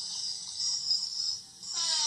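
Soft background music with a steady high hiss.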